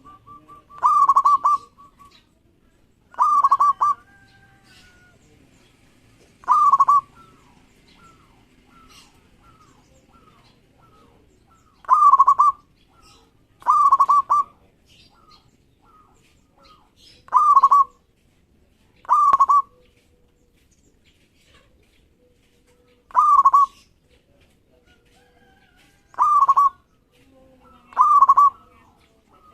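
Zebra dove (perkutut) singing: short, loud, rapidly trilled coos repeated about ten times at irregular gaps of two to five seconds, with faint softer chirping between them.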